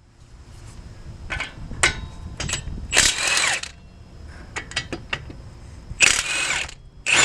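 Ratchet wrench clicking in short runs as the wheel hub's four mounting bolts are backed out, with scattered metal clicks and clinks between the runs.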